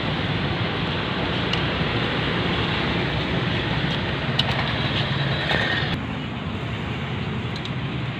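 Steady machine running noise, like an engine running, with a few faint clicks; it eases slightly about six seconds in.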